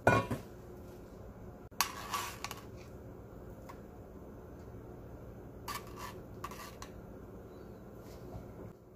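Metal tongs clinking and scraping against a ceramic plate and a mesh strainer while asparagus spears and pieces of poached cod are laid on the plate. The clinks come in a few short clusters: at the start, about two seconds in, and twice around six seconds. A low steady hum sits underneath.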